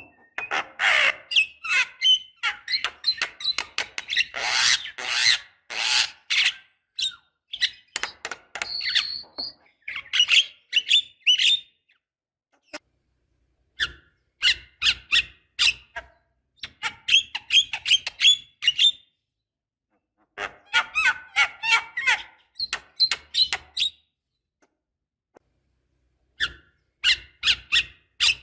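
Javan myna (jalak kebo) singing a rapid chattering song of harsh clicks and squeaky notes. It comes in phrases of several seconds, with short pauses between them.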